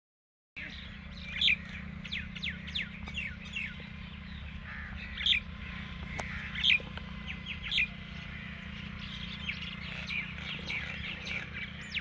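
Small birds chirping: many short, high chirps that sweep down in pitch, some louder than others, over a steady low rumble.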